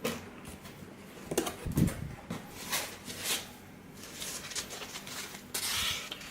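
A cardboard box being opened by hand: scattered scrapes and knocks of the flaps and packing, a low thump about two seconds in, and a longer rustle near the end.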